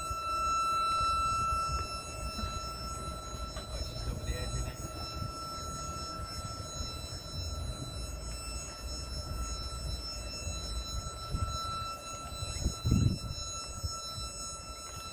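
Turbo-electric prototype vehicle's engine running steadily at a fixed speed as the vehicle drives slowly, with a steady high-pitched whine over a low rumble. A brief louder thump comes about 13 seconds in.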